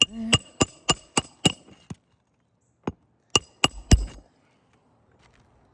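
Hammer blows on a roofing nail: a quick run of about seven sharp ringing strikes, a pause of about a second, then four more.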